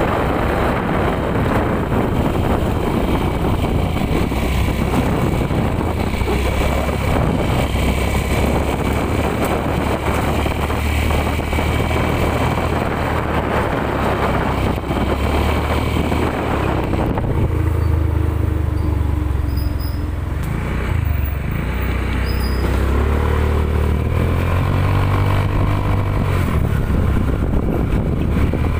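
A small engine running steadily under heavy wind noise on the microphone. About two-thirds of the way through the wind eases and the engine note wavers up and down.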